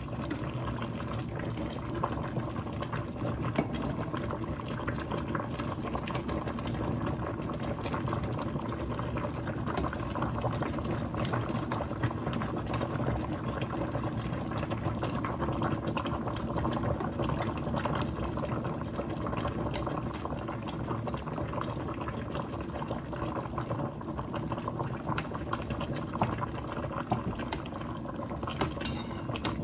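Pot of sinigang broth boiling steadily, bubbling throughout, with a few short clinks of a metal ladle against the stainless steel pot as it scoops from the broth.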